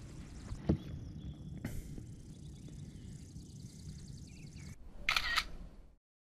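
Camera shutter sound as a photo is taken: a quick double click about five seconds in, after a single faint knock near the start. Near the end the sound drops out to dead silence.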